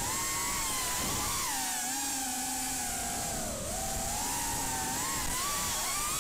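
Racing quadcopter's brushless motors (RCX H2205 2633kv) spinning DAL 4-inch tri-blade bullnose props: a whine that rises and falls in pitch with the throttle, dipping about halfway and climbing again near the end.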